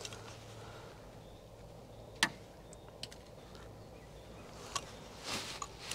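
A few sharp clicks and light knocks from a hand caulking gun being worked to push adhesive through a tube on its nozzle, the loudest click about two seconds in, over a quiet background.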